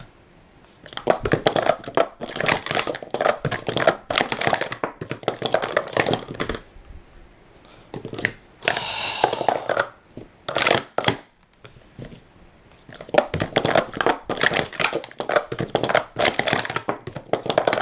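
Speed Stacks Pro Series plastic sport-stacking cups clacking rapidly against each other and the mat as they are stacked up and down by hand, in two fast runs of several seconds with a lull between.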